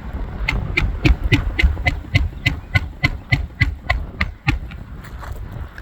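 Quick, even light taps on an asphalt roof shingle, about three or four a second, knocking loose granules; the tapping thins out near the end. A low wind rumble on the microphone runs underneath.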